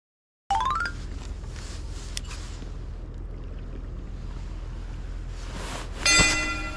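Steady seaside ambience at the shore: an even hiss and low rumble of wind and surf. About six seconds in comes a sharp knock with a short metallic ring as fishing tackle is handled.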